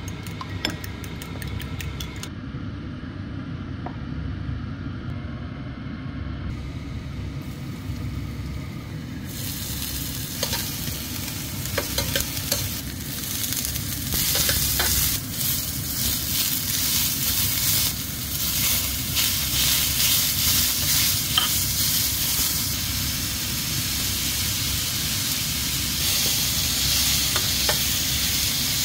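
A fork beating egg against a bowl in quick regular clicks for the first couple of seconds. Then, from about nine seconds in, diced vegetables and chopped chicken sizzling in a stainless steel frying pan, stirred with a metal slotted spatula that clicks and scrapes against the pan, the sizzle growing louder.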